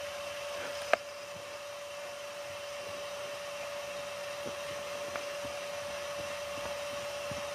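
A steady hum at one unchanging pitch over an even hiss, with a single sharp click about a second in.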